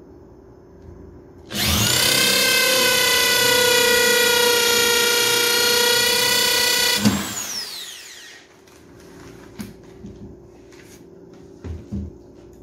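Handheld electric drill boring into the thick wood of an old wooden box. The motor starts about a second and a half in, whines steadily for about five seconds, then spins down with a falling pitch once the trigger is released. A few light knocks follow near the end as the box is handled.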